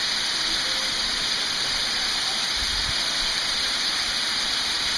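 Waterfall pouring down a narrow rock gorge: a steady rushing hiss of falling water.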